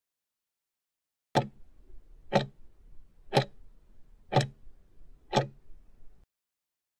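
Clock-tick countdown sound effect: five sharp ticks, one each second, marking the last seconds of the quiz timer running down to zero.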